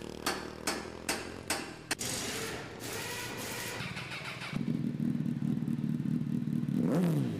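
Motorcycle sound effect: four sharp knocks about 0.4 s apart, then a motorcycle engine running with a steady low note that rises in a brief rev near the end before cutting off abruptly.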